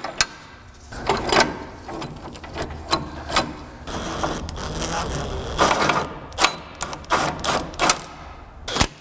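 Scattered metal clicks and clinks as an internal coil spring compressor's threaded rod and hooks are fitted into a GMT400 truck's front coil spring. About four seconds in, a steady whir with a thin high whine runs for about two seconds.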